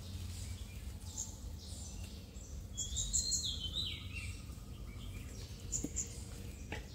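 A bird calls once about three seconds in: a short run of high chirps stepping down in pitch, over a steady low background hum.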